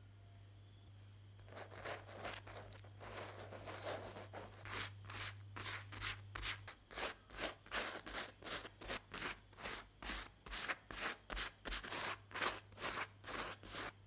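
A silicone pastry brush spreading parsley oil over soft flatbread. Soft scraping starts about a second and a half in, then settles into quick, regular brush strokes, about two or three a second.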